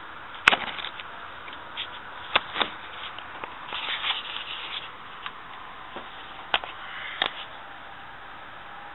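Handling noise: a few sharp clicks and knocks and a short rustle as the camera is moved up against a window and its screen, over a steady low hiss.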